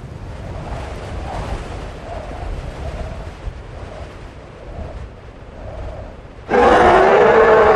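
Low desert wind rumble with faint wavering tones, then about six and a half seconds in a loud, long creature bellow breaks in suddenly and holds at a steady pitch.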